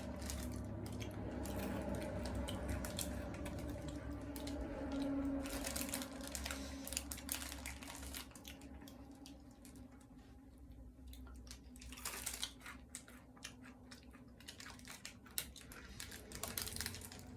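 A person chewing crunchy candy-coated chocolate M&M's, a run of short crisp crunches. A low steady hum underneath fades after about eight seconds.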